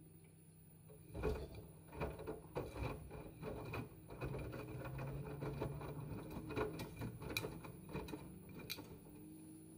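Paintbrush working acrylic paint on a stretched canvas: a busy run of scratchy strokes and small taps and clicks, starting about a second in and dying away near the end, over a faint steady hum.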